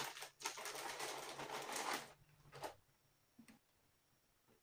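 Rustling and crinkling as a polyester kitchen towel is handled and unfolded, for about two seconds, then two soft taps.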